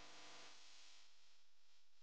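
Near silence: a faint layer of steady tones that dies away about half a second in, leaving only faint hiss.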